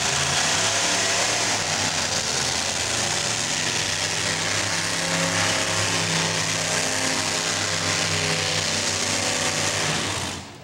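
Modified pulling tractor's engines running hard and steady as it drags the weight-transfer sled down the track. The sound drops away sharply near the end.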